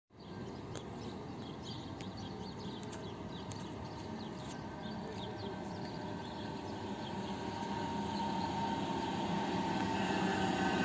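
Rubber-tyred Translohr tram approaching along its guide rail. Its running noise and electric drive hum grow steadily louder, with a steady whine coming up over the last few seconds.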